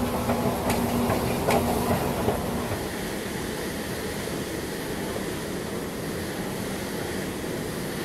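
Rail car running: a steady rumble, with a couple of sharp clacks in the first two seconds and a humming tone that stops about two and a half seconds in.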